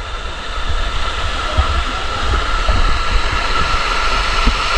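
Small waterfall pouring steadily into a pool, heard as an even rushing hiss, with a low rumble on the microphone.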